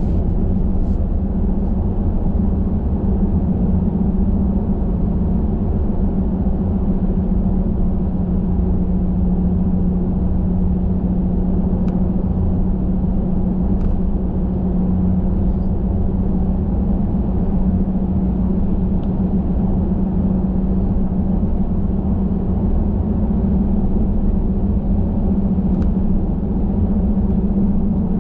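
Steady rumble of a car driving: engine and road noise with a constant low hum.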